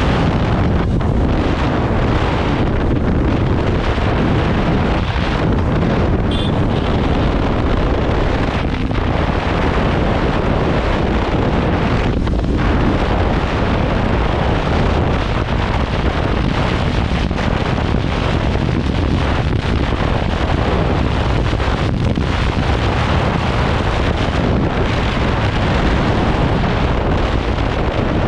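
Loud, steady wind noise buffeting the microphone of a motorcycle moving at speed.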